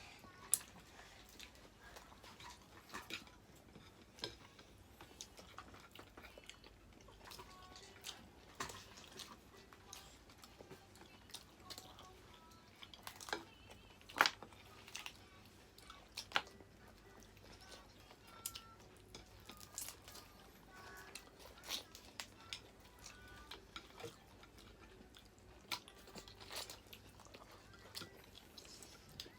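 Close-up eating sounds of crab being cracked and eaten by hand: scattered sharp cracks and clicks of shell with chewing between them. The loudest crack comes about 14 seconds in.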